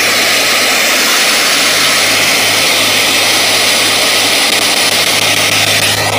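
Loud, steady radio static from a spirit box sweeping the AM band, played through a small portable speaker, over a low steady hum. The static drops off sharply at the very end.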